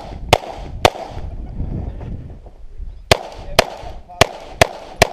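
Pistol shots: two in quick succession, a pause of about two seconds, then five more in a rapid string.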